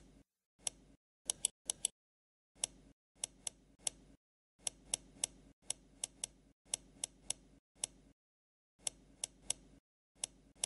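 Computer mouse clicking: about two dozen short, sharp clicks at an uneven pace, often two or three in quick succession, with silence between them.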